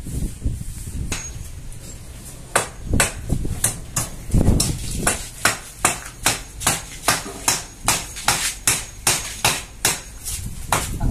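Hammer blows in a fast, steady rhythm, about three strikes a second, starting a couple of seconds in after a single early knock.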